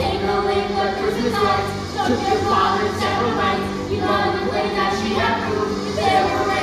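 A stage cast singing together as a chorus over instrumental accompaniment: an upbeat musical-theatre Christmas song.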